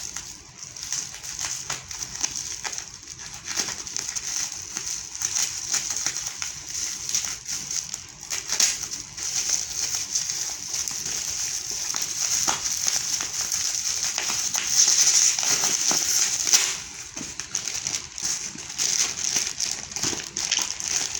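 Plastic parcel packaging being handled and unwrapped: steady crackling and crinkling with scattered small clicks, loudest for a moment at about fifteen seconds in.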